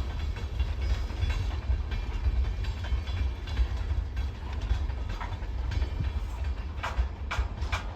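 Freight train cars rolling past with a steady low rumble and scattered wheel clicks, and three short, sharper sounds near the end.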